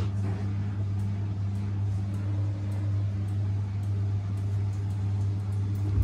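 Front-loading washing machine running, its drum turning with a steady low motor hum and fainter higher tones above it, on a first attempt to spin up the load.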